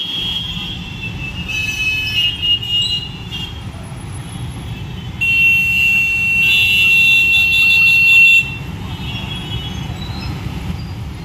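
Traffic jam: a steady low rumble of idling and creeping engines, with vehicle horns honking. Short toots come in the first few seconds, then a horn is held for about three seconds from about five seconds in, the loudest sound, and a second horn joins it partway through.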